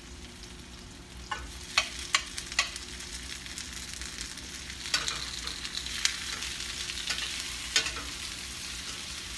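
Onions, garlic and ginger sizzling in a stainless steel skillet as sliced tomatoes are dropped in with metal tongs. The tongs click against the plate and pan several times, and the sizzle grows louder about halfway through as the tomatoes hit the hot oil.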